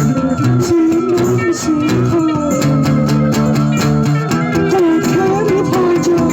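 Guitar-led music with a steady beat and a repeating low bass figure.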